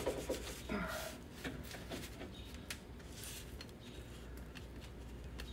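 Hand lever grease gun being pumped into a front-suspension grease fitting: faint clicks and squeaks of the lever, most of them in the first two or three seconds, as grease is forced through the joint.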